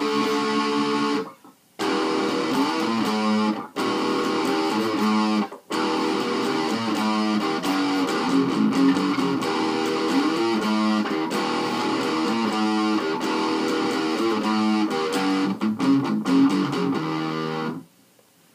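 Electric guitar with heavy distortion from a Line 6 Uber Metal pedal, played through a small 10-watt Fender amp: metal riffs with held notes and string bends. The playing breaks off briefly a few times and stops shortly before the end.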